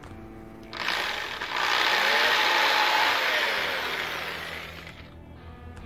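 Cordless drill with a 1/16-inch bit drilling a pilot hole into a wooden storm window frame. The motor spins up about a second in, runs for about three seconds with its whine rising and falling, then winds down.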